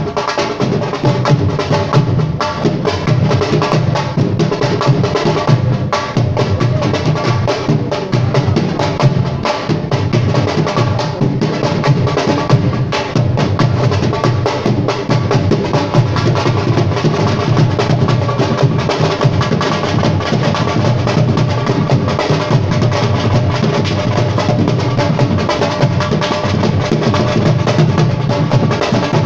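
Drums played in a fast, dense rhythm, with several steady held melodic tones sounding over them; the music runs on without a break.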